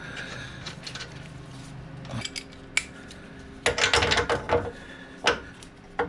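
Metal hand tools clinking and clattering as they are handled: scattered single clicks, then a burst of rattling clanks about four seconds in and one sharp knock a second later.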